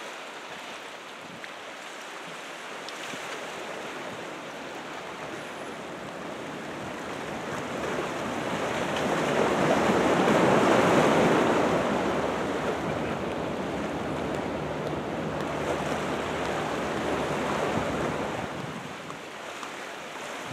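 Ocean surf from a typhoon swell breaking and washing in: a steady rush that builds to its loudest about halfway through, eases, and swells a little again near the end, with some wind on the microphone.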